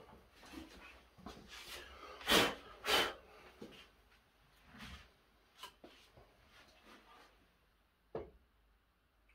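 Handling noises from a jigsaw that is not running: rustles and knocks, the two loudest about two and a half and three seconds in, and a sharp click just after eight seconds as the saw is set down.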